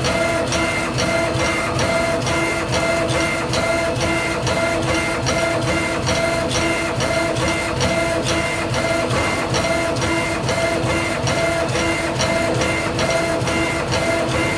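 Schnell C1325 CNC laser engraver's head scanning back and forth in raster lines across a stone tile, its stepper motors whirring with a click at each line reversal about three times a second, over a steady machine hum.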